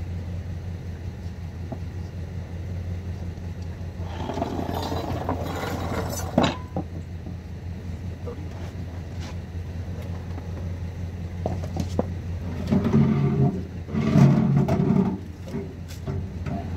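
A small wooden desk is handled and moved, with knocks, and scrapes and rumbles from the desk, loudest about 13 to 15 seconds in. A steady low hum runs underneath.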